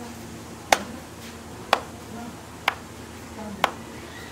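Bare hands slapping a ball of roti dough between the palms to flatten it, five sharp slaps about a second apart.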